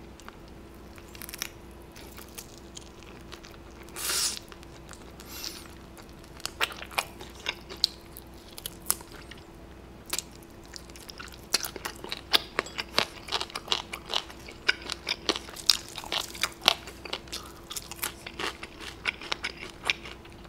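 Crispy fried chicken being bitten, chewed and pulled apart close to the microphone. Quick crackling crunches of the fried coating come sparsely at first, then thick and fast over the second half, over a faint steady hum.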